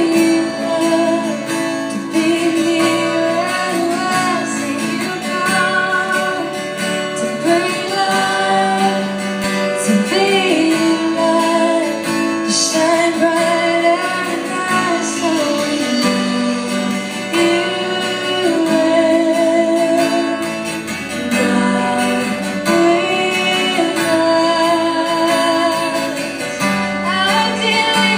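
Live worship band: a woman sings the lead over strummed acoustic guitar and the rest of the band, continuously and at full volume.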